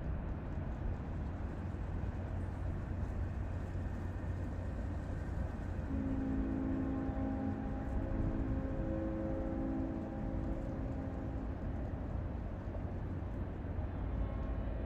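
Steady low rumble of vehicle engines with no firework bangs; a pitched engine hum comes in about six seconds in and fades out about halfway through.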